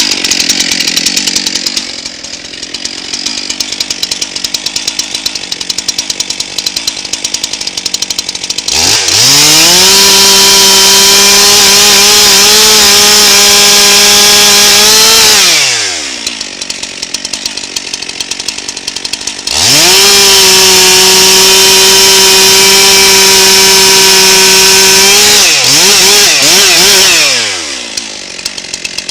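Stihl two-stroke chainsaw idling, then run up to full throttle twice for about six seconds each while bucking red oak, with idle between. A few quick revs come near the end before it settles back to idle.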